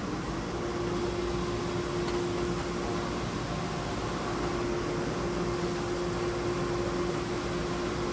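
SCMI Sandya 5 wide-belt sander starting up: its motor's whine rises in pitch in the first half second and settles, then the machine runs steadily with a hum over an even rushing noise.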